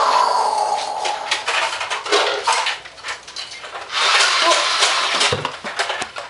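Nerf foam-dart blasters firing: noisy bursts of motor whir with rapid clicking and clattering, one fading over the first second and another about four seconds in.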